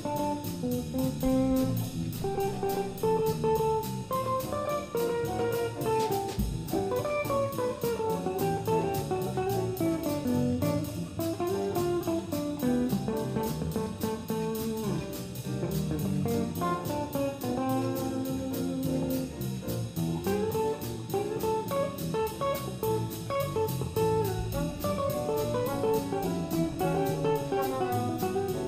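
Small jazz combo playing: a hollow-body electric guitar solos in single-note lines over bass, piano and drums, with a steady cymbal beat.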